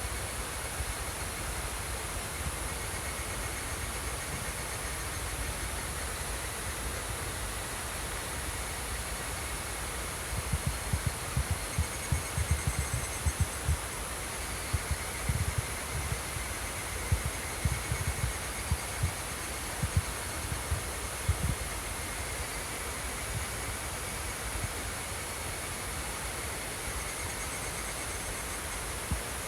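A steady rush of flowing water, with insects chirping as a thin high trill over it. For a stretch in the middle, irregular low thumps and rumbles come through.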